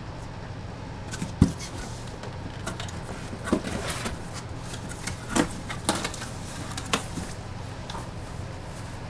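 Hands handling and opening mini-helmet packaging: a scatter of knocks, clicks and rustles, the loudest a sharp knock about a second and a half in, over a steady low hum.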